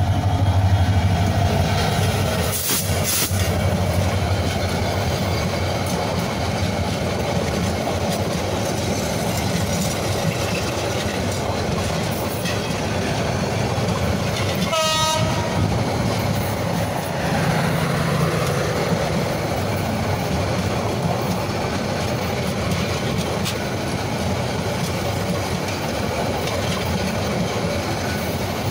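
Diesel locomotive and intercity passenger coaches passing close by at speed: a low engine hum at the start, then the steady rush and clatter of the coaches' wheels on the rails. A brief high tone sounds about halfway through.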